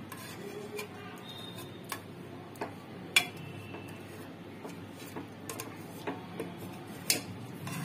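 A ladle knocking and scraping against the inside of a pressure cooker pot while mashing boiled onions, garlic, ginger and green chillies. The knocks are irregular, with one sharp loud knock about three seconds in.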